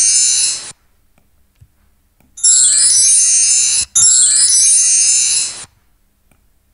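Slide-transition sound effect: a bright chime run sliding downward in pitch. One ends within the first second, and two more follow back to back about two and a half and four seconds in, each lasting about a second and a half.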